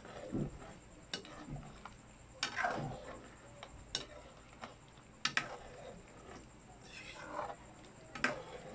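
Spatula stirring chicken pochero in a metal wok of tomato-sauce broth, scraping the pan with a few sharp clinks against its side.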